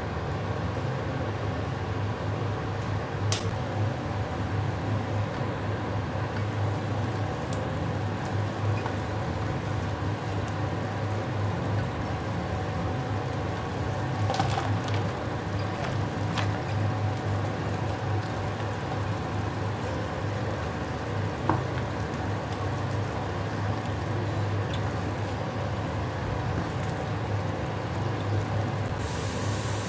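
Pot of sauce simmering while battered fried chicken pieces are stirred through it with a spatula: soft bubbling and wet squishing, with a few light clicks of the spatula against the pot over a steady low hum.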